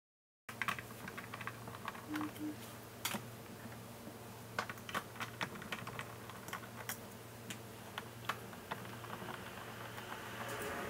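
Small, sharp clicks and taps of a screwdriver, screws and hands on the plastic body of a Roborock robot vacuum while its LiDAR sensor is unscrewed and lifted off. It starts after a brief gap, and a soft scraping rustle builds near the end.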